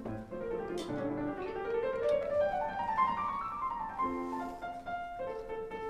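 Background classical music, piano with strings, with a rising run of notes midway. A few faint clicks sound under it.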